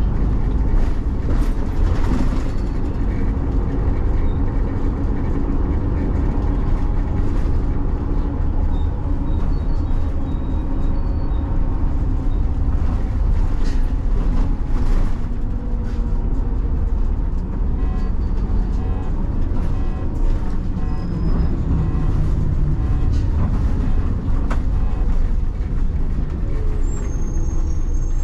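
City bus under way: steady engine and road noise, with the engine note rising and falling as the bus changes speed.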